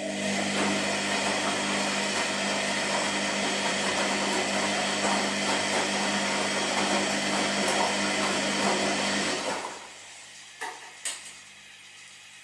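Washing machine drum turning under its motor for about nine and a half seconds, a steady hum over a rushing noise, then winding down. Two short clicks follow about a second later.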